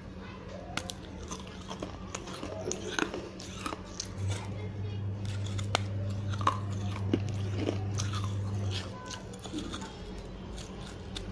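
Teeth biting and scraping the edge of a piece of baked clay gullak, giving scattered small crunches and gritty clicks. A steady low hum runs underneath, swelling from about four seconds in to about nine.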